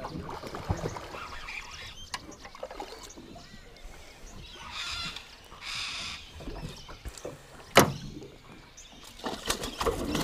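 Hooked fish splashing at the water's surface beside a small boat as it is reeled in, with a burst of splashing about five seconds in. A little later comes a single sharp knock, the loudest sound.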